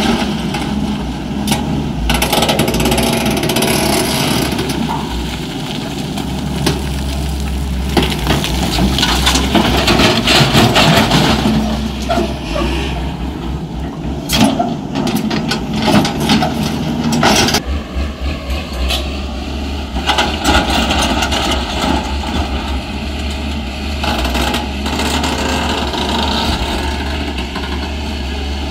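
Hyundai crawler excavator's diesel engine running steadily under load as it digs rocky red earth, with scattered knocks and clatter from the bucket, soil and stones, busiest around the middle.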